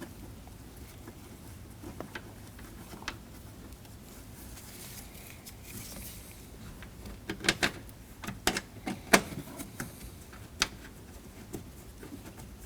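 Light, scattered clicks and taps of a screwdriver and screws as a door speaker is fastened into a car door by hand, with a cluster of sharper clicks in the second half.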